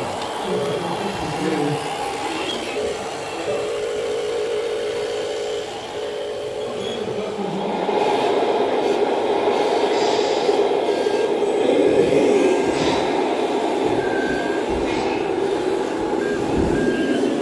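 Radio-controlled model trucks running: a steady mechanical whine and hum from their motors and drive, getting a little louder about halfway through.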